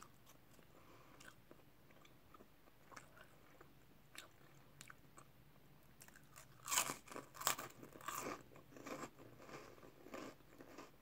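Crunching and chewing of a puffed crisp snack, starting about six and a half seconds in after a quiet stretch with a few faint clicks.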